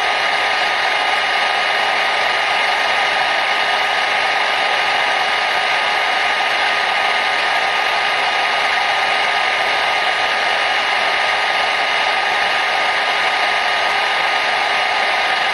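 Hair dryer running steadily: an even rush of blown air with a faint steady whine from the motor in it, unchanging throughout.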